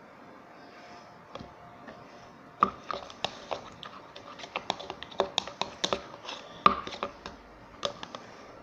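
Slime being kneaded and squished by hand, giving a run of irregular sticky clicks and pops that starts a little before three seconds in and stops about eight seconds in.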